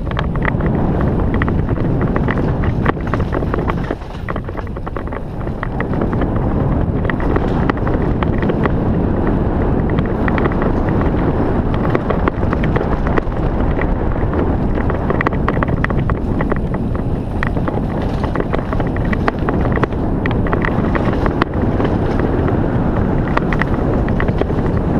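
Wind rushing over a helmet-mounted GoPro's microphone and mountain bike tyres rolling over a rough dirt trail, with frequent clicks and rattles from the bike. It eases briefly about four seconds in.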